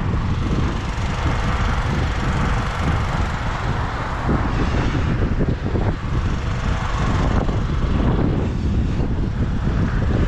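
Steady outdoor rumble of wind buffeting the microphone, mixed with road traffic noise.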